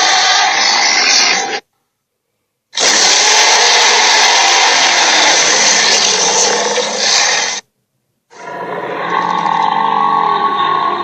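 Cartoon monster's roar sound effect: a harsh, grinding, rasping roar, heard as three long takes, each cut off abruptly, with the last one fading at the end.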